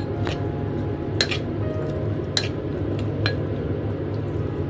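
A spoon stirring chopped spring onions and grated ginger dressed in oil in a ceramic bowl. There is a soft wet stirring sound, and the spoon clicks sharply against the bowl four times, about a second apart, over a steady low hum.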